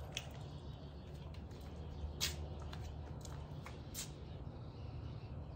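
A dog moving between cardboard boxes on concrete, searching for a scent: a few short sharp clicks and scuffs, the loudest a little past two seconds in and at about four seconds, over a steady low hum.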